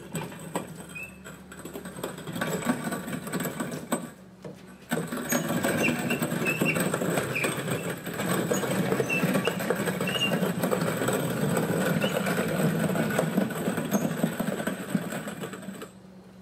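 The casters of a heavy RCA TR-70B quadruplex recorder cabinet rolling over concrete, a continuous rattle of wheels and cabinet with small squeaks. It pauses about four seconds in, comes back louder a second later, and cuts off near the end.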